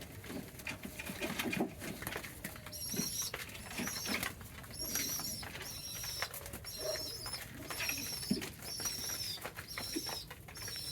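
Pigeons cooing low and briefly, with a thin high call repeating roughly once a second throughout.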